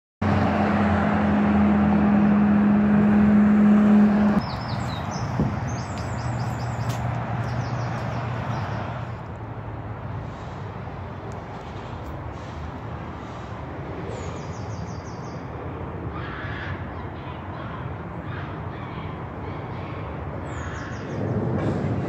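Outdoor ambience: small birds chirping in short, rapid series of high notes over a steady background rumble. For the first four seconds or so a louder steady low hum runs under it and then stops abruptly.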